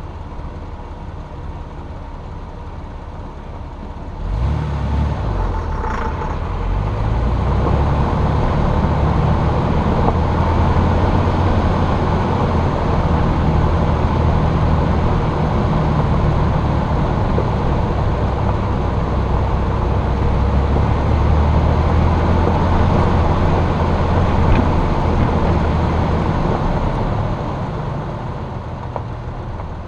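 Jeep engine idling, then picking up suddenly about four seconds in as the Jeep pulls away and drives on, its low engine note holding steady before easing off near the end.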